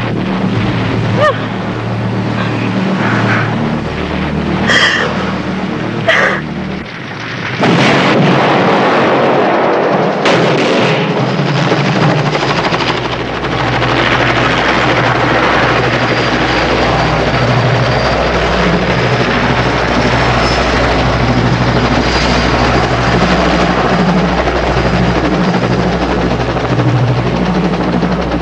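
Action soundtrack of gunshots and blasts, with a sudden loud burst of noise about eight seconds in. It gives way to a helicopter running steadily with a pulsing rotor beat.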